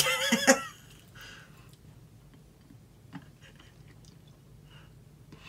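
A woman gives a short, wavering vocal whine as she bites into a piece of black licorice, then chews it softly with a few faint wet mouth clicks.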